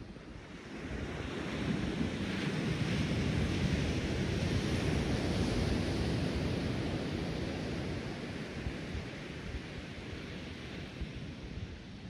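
Ocean surf washing onto a sandy beach: one wave swells over the first couple of seconds and then slowly fades. Wind is buffeting the microphone.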